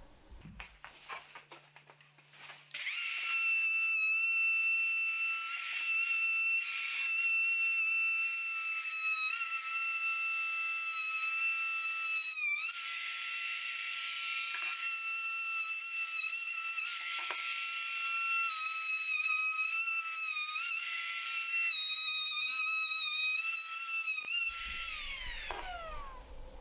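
High-speed power tool motor whining at a steady high pitch, starting about three seconds in, sagging briefly now and then as if under load, then winding down with a falling pitch near the end.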